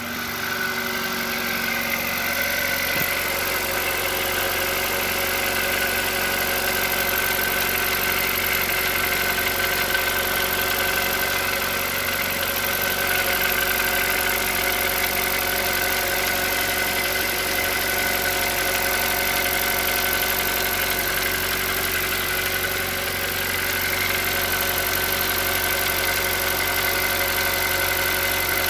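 Hyundai Solaris 1.6-litre four-cylinder petrol engine idling steadily from a cold start, with a regular knock that shows up while the engine is cold; the owner does not know its cause.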